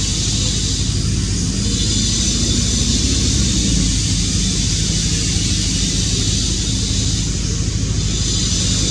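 Steady low mechanical drone with an even high hiss over it, unchanging throughout.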